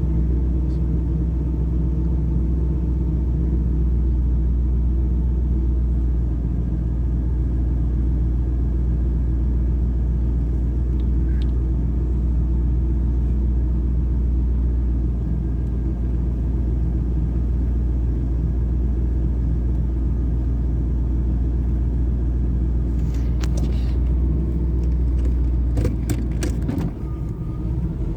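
Camaro IROC-Z V8 idling with a steady rumble: the warm rough idle that the owner links to stalling. Near the end come a few sharp clicks and a brief dip in the engine's level.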